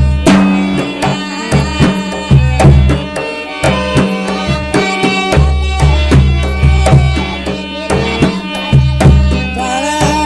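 Instrumental interlude of a Rajasthani devotional song: a hand drum such as a tabla or dholak plays a steady rhythm under a sustained melodic accompaniment, with no singing.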